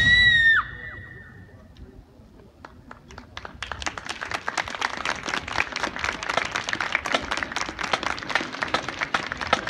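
A marching band's final held note ends with a sharp downward slide about half a second in. After a brief hush, audience applause builds from about three seconds in and carries on steadily.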